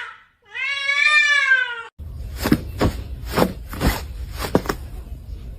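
A domestic cat's single long meow, rising and then falling in pitch. It is followed by about six short, sharp knocks over a low hum.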